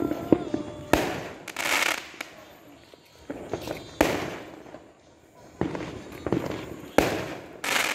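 Aerial fireworks going off overhead: three loud bangs about a second in, at four seconds and at seven seconds, each followed by crackling, with smaller pops between them.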